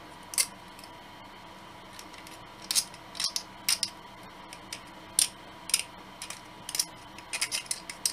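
Hobby knife blade scraping and shaving plastic model kit parts to clean them up: a series of short, sharp scrapes at irregular intervals.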